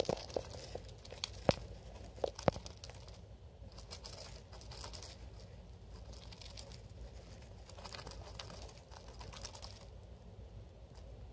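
A small pet rodent digging and burrowing through wood-shaving bedding: soft rustling and crinkling of the shavings. Two sharp clicks come in the first few seconds.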